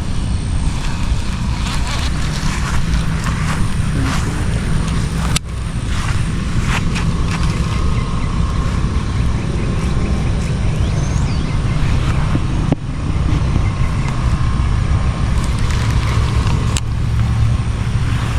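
Steady low rumble of wind buffeting the microphone, with a couple of brief dropouts.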